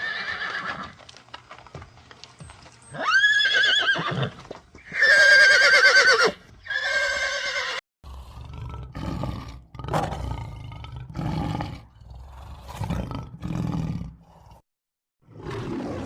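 Equine whinnying: several long, high calls with a wavering pitch, one rising and falling arc among them. After about eight seconds it cuts to a different animal giving a run of deep, rough calls, roughly one a second.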